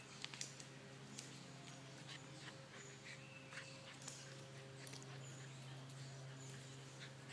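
Faint, scattered short whimpers and small noises from a German Shepherd puppy and a wolf hybrid play-fighting, over a steady low hum.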